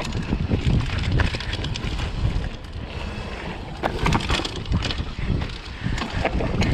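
Mountain bike riding down a wet, rocky trail: wind rushing over the microphone, with the tyres and bike rattling and knocking over rocks and roots.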